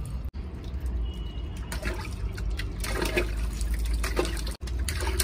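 Tap water running into a bunch of self-sealing water balloons as they fill, with water splashing and dripping into a plastic bucket below.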